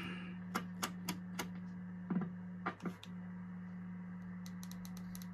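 Rotary channel selector switch of a vintage JCPenney Pinto 23-channel CB base station clicking through its detents as the knob is turned: several separate clicks, then a quick run of clicks near the end. A steady low hum sits underneath.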